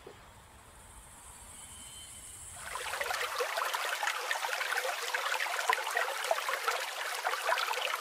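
Faint hiss, then about three seconds in, water trickling and splashing, a steady crackling rush that carries on from there.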